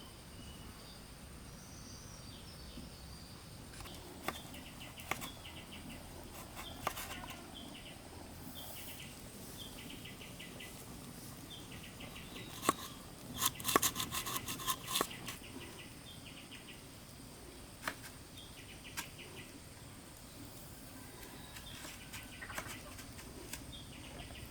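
Outdoor insect and bird sounds: a steady high whine with short repeated chirping trills. Scattered sharp knocks break in, with a quick run of louder knocks about halfway through.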